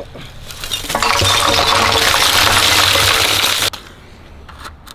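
Lumps of charcoal tipped from a wicker basket into a steel-drum tandoor, a dense clattering and clinking that builds about a second in, lasts over two seconds and stops abruptly. A couple of faint clicks follow near the end.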